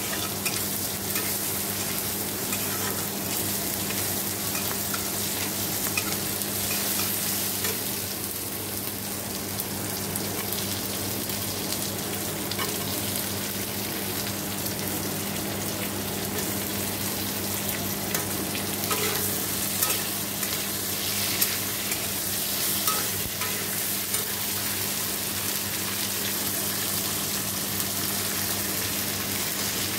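Onions, tomatoes and potato pieces sizzling in oil in a black kadai on a gas stove, with a metal spatula scraping and clicking against the pan as they are stirred. A steady low hum runs underneath.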